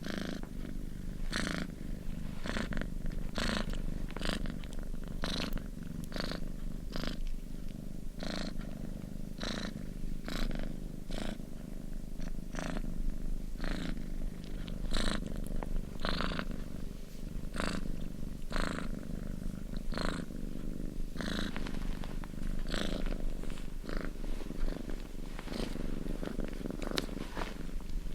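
Domestic cat purring steadily and close up. A breathy rasp comes with each breath, roughly once a second.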